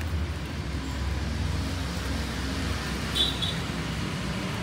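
Steady low rumble of road traffic, with a short high double chirp about three seconds in.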